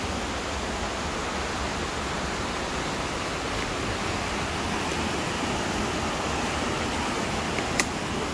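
Steady rush of a fast-flowing mountain stream, an even noise with no rise or fall, and a single sharp click near the end.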